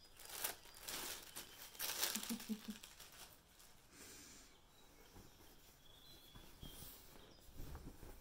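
Paper wrapping crinkling and rustling as a package is unwrapped by hand, loudest in the first three seconds, then fainter rustling as the folded cotton T-shirt inside is handled and shaken out.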